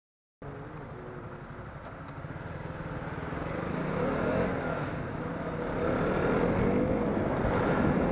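KTM Duke motorcycle engine under way, coming in about half a second in and growing louder as the bike accelerates, its pitch rising.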